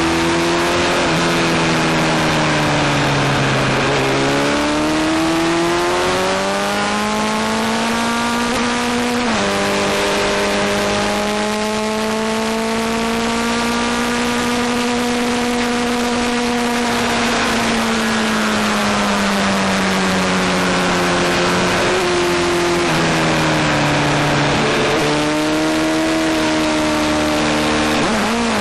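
Onboard sound of a Honda sport bike's engine at track speed, with wind rush. Its pitch falls as the rider slows for corners and climbs again under acceleration, with a sudden drop at a gear change about nine seconds in and a long steady stretch after it.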